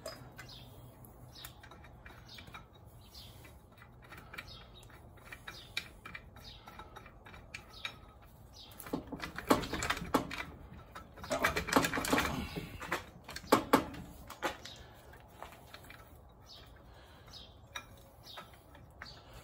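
Metal clicks and clatter of hand tools working on an engine's belt-tensioner and alternator bracket: scattered ticks, with a busier stretch of rapid clicking about nine to fourteen seconds in.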